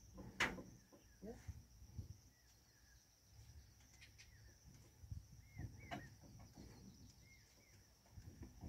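Very quiet: a faint, steady, high insect buzz, such as crickets or cicadas, with a few soft bird chirps. There is one sharp click about half a second in.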